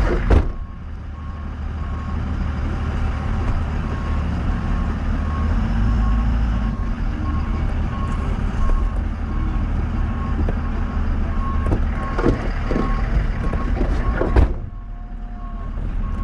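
Truck engine running while a reversing alarm beeps in an even, repeating series. Two sharp knocks stand out, one just after the start and one about 14 seconds in.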